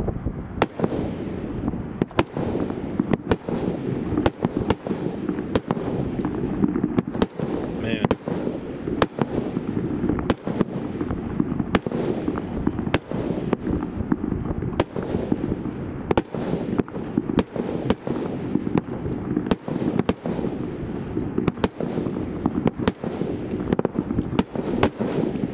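Pyro Junkie 24 Karat Gold consumer firework cake firing shot after shot: a run of sharp, hard-hitting breaks, more than one a second.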